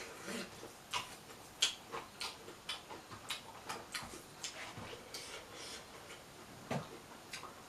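Close-miked eating sounds: chewing with irregular crisp clicks and smacks, a few a second, and one stronger crunch near the end.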